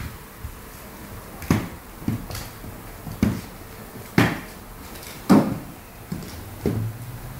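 Irregular thumps and knocks from a vizsla puppy playing on a wooden parquet floor, about seven in all, each sudden with a short ringing tail.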